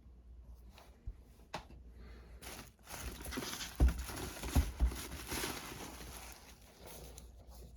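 Blu-ray and DVD cases and packaging being handled: a few sharp clicks, then a couple of seconds of rustling with three heavy knocks in the middle.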